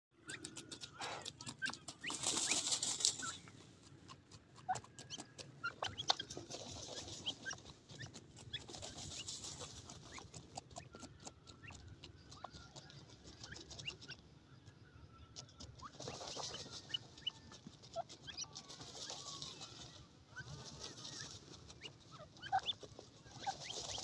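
Grey francolins dust-bathing in dry soil: repeated bursts of rustling, scattering dirt as the birds flap and wriggle in the dust, the loudest about two seconds in, with soft short calls between.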